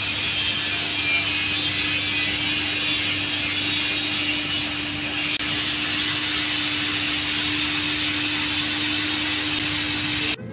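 Steam hissing steadily from the standing 0-6-0 saddle tank locomotive NCB No. 7 Wimblebury, escaping low around its cylinders, with a steady low hum underneath. The hiss eases a little about halfway through.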